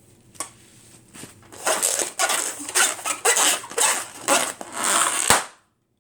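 Balloons being squeezed and crushed by hand: a quick run of short rubbery crinkling and rubbing noises, about two a second, ending in one sharp balloon pop a little after five seconds.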